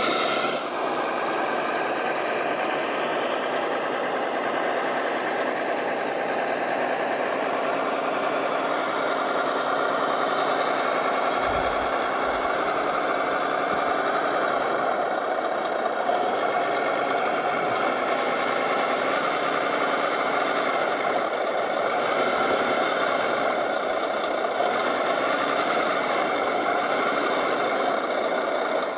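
RC scale 6x6 truck on a King Kong RC CA30 chassis, built as a Kraz 255, running steadily as it crawls through loose sand.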